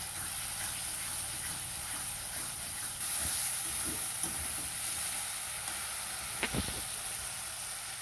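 Onion and spice masala sizzling in hot oil in a metal kadai while being stirred and fried down with a metal spatula. A few light scrapes, then a sharp clink of the spatula against the pan about six and a half seconds in.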